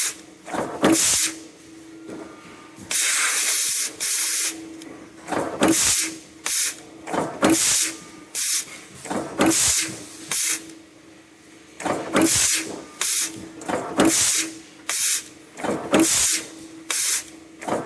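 Press line drawing and blanking stainless-steel wire mesh: repeated short blasts of compressed-air hiss, roughly one a second and one longer blast about three seconds in, over the press's steady hum.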